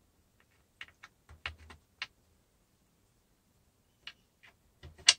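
Small metal screws and hardware being handled at a cabinet door, giving a scatter of short sharp clicks and taps: a cluster about a second in, then a few more near the end, the last one the loudest.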